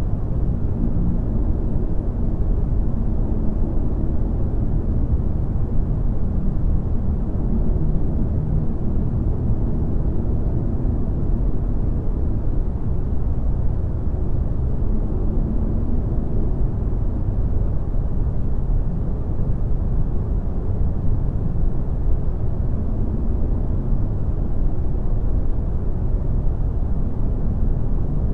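Steady, deep, muffled rumbling noise with faint low hums drifting in and out, without break or sudden events: the ambient background bed of a subliminal audio track.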